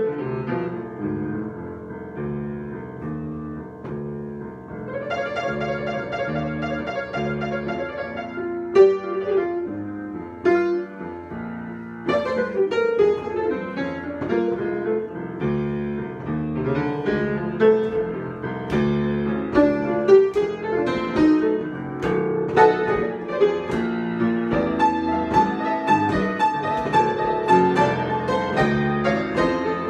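Solo piano improvisation: chords and melodic lines, with a long held chord about five to eight seconds in and busier playing from about twelve seconds on.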